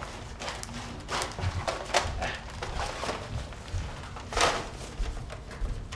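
Handling noise as a plastic Nerf Mega Centurion blaster is pushed into a fabric blaster sleeve: scattered rustles, scrapes and light knocks, the loudest about four and a half seconds in.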